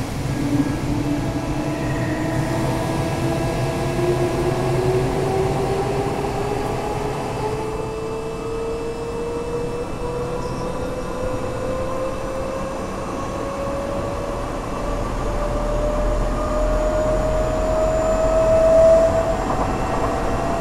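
Tokyo Metro 8000 series chopper-controlled train heard from inside a passenger car as it accelerates. A motor whine climbs steadily in pitch over the train's running noise, which grows louder near the end.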